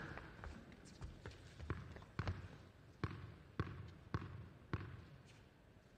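A tennis ball bounced repeatedly on an indoor hard court in a server's pre-serve routine, about two sharp bounces a second.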